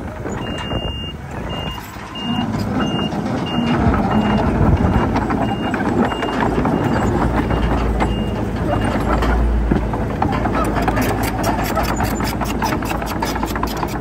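A heavy vehicle's reversing alarm beeping about every half-second over a running diesel engine, the beeps fading out about nine seconds in. Near the end, a fast series of clicks.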